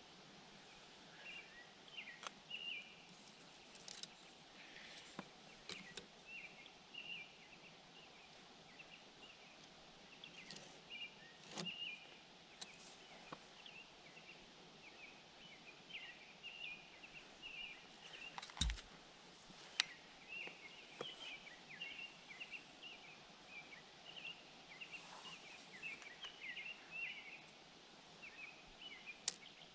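Small birds chirping faintly in quick, repeated short notes, with a few sharp clicks and one low knock about two-thirds of the way through.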